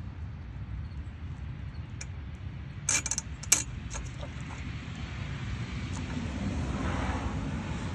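A few sharp clicks and taps of metal parts as a new carburetor and its gasket are fitted onto a 212cc Predator engine's intake, the loudest about three and a half seconds in, over a steady low rumble.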